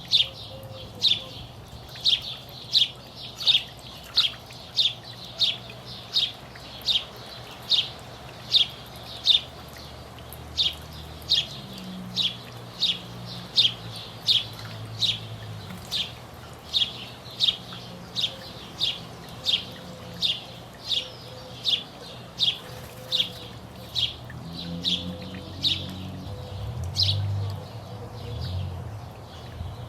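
A small songbird repeating one short chirp over and over, about twice a second, with a low rumble underneath that swells near the end.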